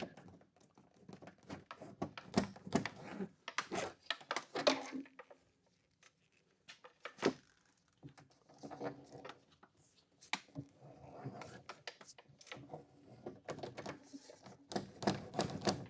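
Irregular clicks, taps and knocks of hands handling tools and small parts, scattered through with brief pauses.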